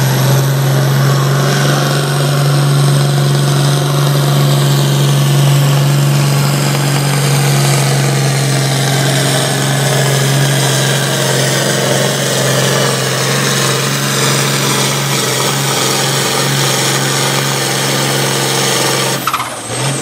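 International 1066 farm tractor's turbocharged six-cylinder diesel running flat out at steady high revs under full load while pulling a sled, with a thin high whine above the engine note. The sound dips briefly about a second before the end.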